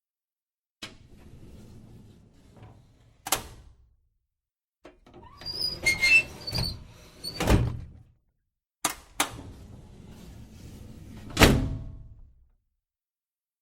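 Something sliding along with a low rumble and shutting with a thump, three times over, with a few squeaks in the middle one; the last thump is the loudest.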